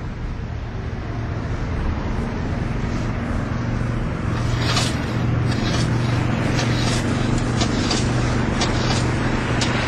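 Twin propeller engines of a seaplane droning steadily and growing louder as the plane bears down across the water. From about halfway, a string of short sharp rasps rides on top as the small boat's outboard pull cord is yanked.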